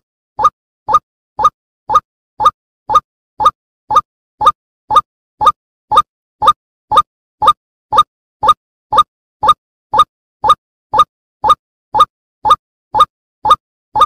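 White-breasted waterhen (ruak-ruak) call played as a hunting lure: short rising notes repeated evenly, about two a second.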